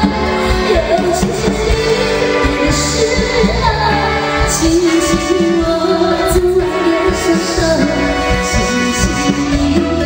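A woman singing a pop song into a microphone over a live band with electric guitar and drums.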